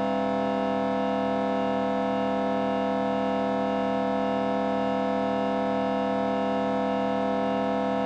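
Synthetic vocoder-processed drone: one sustained chord of many held tones, steady in pitch and loudness throughout.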